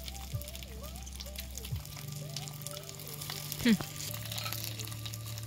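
Hot oil sizzling and crackling as food fries in a pan, with soft music underneath. A short falling whistle-like sound comes about two-thirds of the way through.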